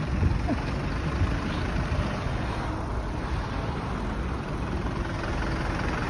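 Steady low rumble of a city bus engine running just ahead, mixed with road and traffic noise.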